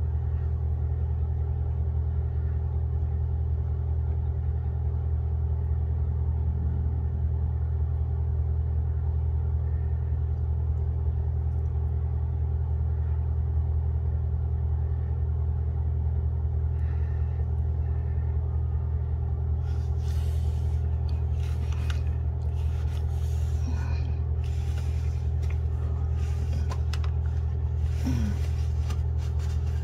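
A steady low mechanical hum at an even level, joined from about two-thirds of the way in by scattered clicks and rustles.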